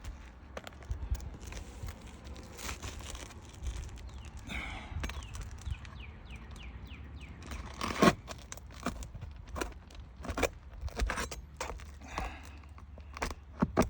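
Scraping and knocking of a tool working nails out from under brittle asphalt roof shingles: scattered clicks and knocks, a short scraping rattle about halfway through, and one sharp knock just after it.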